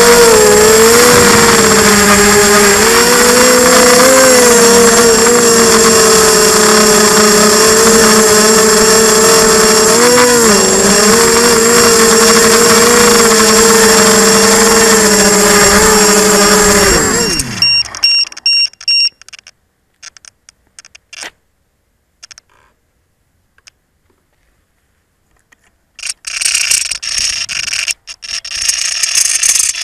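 Quadcopter's brushless motors and propellers whining loudly from the onboard camera, the pitch wavering as the throttle changes, then spinning down and stopping a little over halfway through. A few short high beeps follow, then rustling and knocks as the craft is handled near the end.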